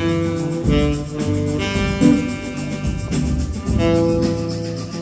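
Live band music led by electric guitars, with held notes ringing out over the rhythm section.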